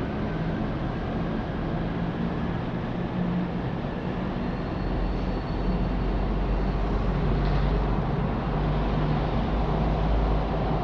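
City traffic: vehicle engines running steadily, with a deeper low rumble coming in about halfway through and a faint thin high squeal near the middle.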